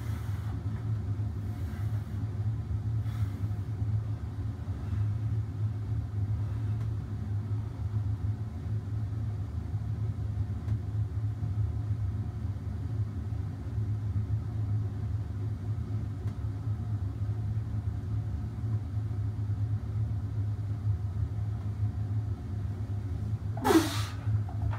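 Steady low machine hum. There are a few faint knocks, and near the end one short, loud sound that falls in pitch.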